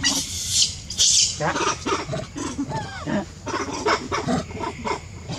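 Macaques calling. A loud, high hissing burst comes in the first second or so, then a run of short grunts and chirps, one of them a falling chirp.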